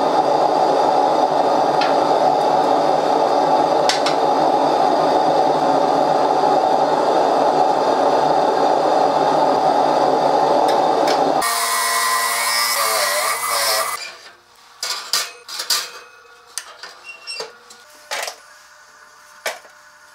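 Gas forge burner running with a steady roar while a file-steel chisel heats to quenching temperature. About eleven seconds in, the roar gives way to a couple of seconds of hissing sizzle as the hot blade is quenched. This is followed by a series of light clicks and knocks from handling the blade and a toaster oven.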